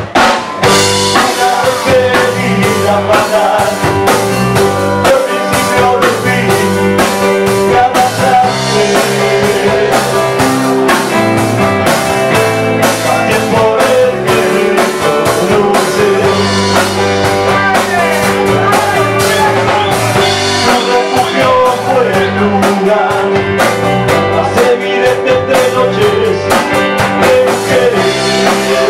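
Live rock band playing at full volume: electric guitar, bass guitar and drum kit, with a man singing into the microphone. The song comes in abruptly at the start.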